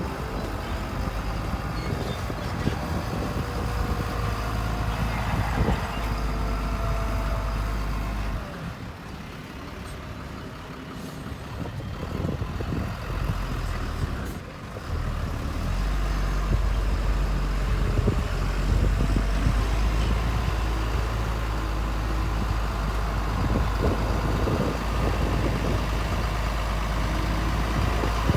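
Heavy diesel engine of earthmoving machinery running. It drops off about eight seconds in and picks up again louder around fifteen seconds.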